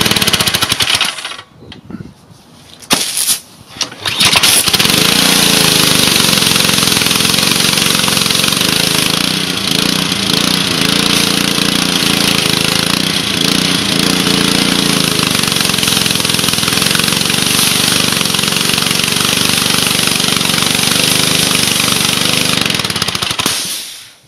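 Small Honda engine on a pressure washer starting and running with the pump spraying water. A first run drops off about a second in. After two short bursts it catches about four seconds in and runs steadily, with a strong hiss of spray, until it is shut off just before the end.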